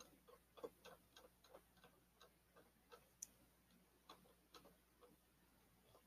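Faint, irregular ticking of a computer mouse's scroll wheel and buttons as a web page is scrolled, a few clicks a second.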